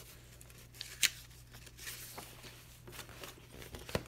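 Paper pages of a paperback workbook being turned and brushed by hand: a series of short rustles and swishes, the sharpest flip about a second in and another near the end.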